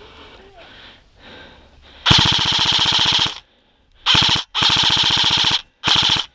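Airsoft rifle firing four full-auto bursts, a rapid even rattle of about twenty shots a second. The first burst lasts about a second and a quarter, followed by a short burst, a second-long one, and a short one, each stopping abruptly.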